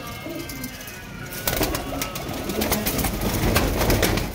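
Domestic pigeons cooing, then a busy run of wing flaps and sharp clicks starting about a second and a half in.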